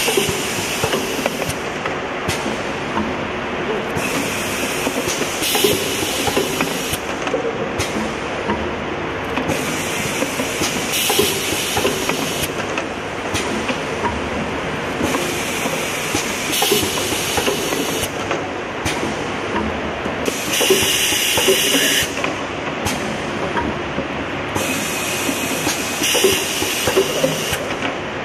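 Fully automatic foil transfer machine running, a steady mechanical clatter broken every few seconds by a hiss of compressed air, each lasting a second or two, as the pneumatics cycle to load, print and eject containers.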